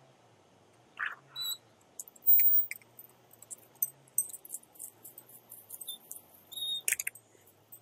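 A door being opened, loudest about two seconds in, followed by scattered light clicks and taps as someone steps out and walks off. A few short bird chirps sound about a second in and again near the end.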